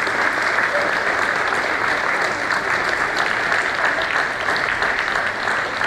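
Audience applauding: dense, steady clapping from a large crowd.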